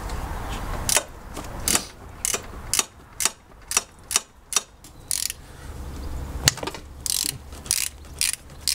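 Socket ratchet clicking as it is worked back and forth to undo a 17mm bolt, a sharp run of clicks on each return stroke. The strokes come about half a second apart, with a brief pause past the middle.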